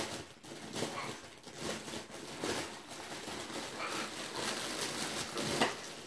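Rustling with light clicks and knocks as a parrot toy made of wooden and cardboard chew pieces strung on rope is picked up and handled.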